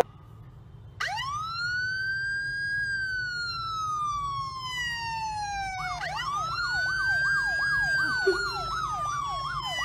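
Siren wailing, starting about a second in with a steep rise and then a slow fall in pitch. From about six seconds a second, faster yelping tone sweeps up and down about three times a second over the wail.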